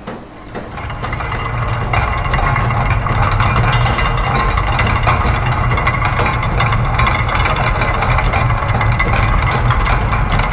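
A dense mix of looped factory machine sounds: rapid clicking and clattering over a steady low hum. It swells up over the first two seconds and then holds steady.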